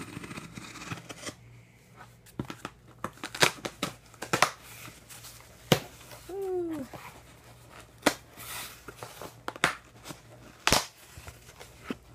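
A utility knife slitting the packing tape on a cardboard shipping box, then the cardboard flaps being pulled open: scraping and rustling with about six sharp cracks as tape and cardboard come apart.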